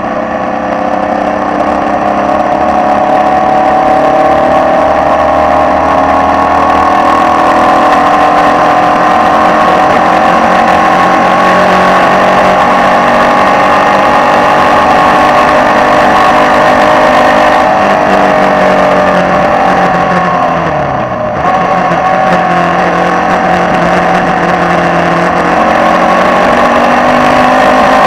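Formula Vee racing car's air-cooled Volkswagen flat-four engine heard from on board, pulling hard with its note climbing steadily. About three quarters of the way through the note drops and briefly dips in loudness, then climbs again.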